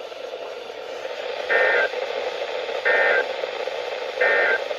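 Emergency Alert System (SAME) end-of-message data bursts over NOAA Weather Radio: three short, identical warbling digital bursts about 1.4 seconds apart, marking the end of the flash flood warning, with steady receiver hiss between them.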